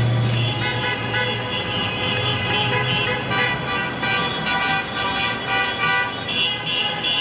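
Several car horns honking at once, long held tones overlapping and changing every few seconds, over the low rumble of traffic.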